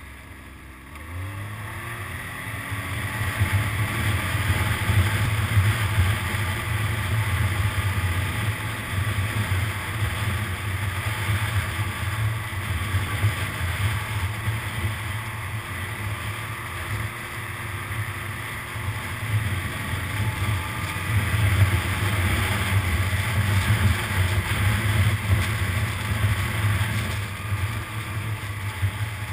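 Snowmobile engine running at speed, a steady low drone that builds over the first few seconds and rises in pitch again about twenty seconds in as the throttle opens.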